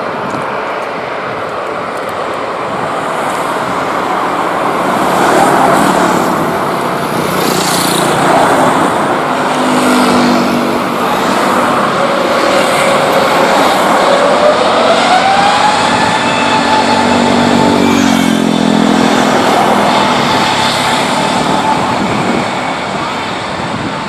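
Airbus A320neo jet engines at take-off thrust during the take-off roll: a loud, steady jet roar that builds over the first few seconds, with a whine that rises in pitch about two-thirds of the way through.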